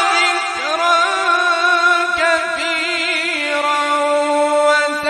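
Male qari reciting the Quran in melodic tajweed style, one drawn-out held note with wavering ornaments about two to three seconds in.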